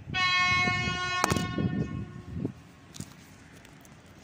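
Train horn sounding one steady, single-tone blast of about two seconds, with a sharp click about a second in.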